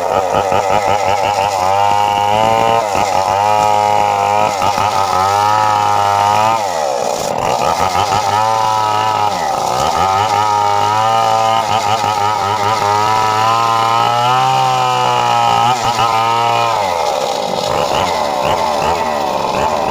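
Chainsaw engine running at high revs as it cuts wood. The pitch dips sharply twice, about seven and nine and a half seconds in, then drops lower near the end.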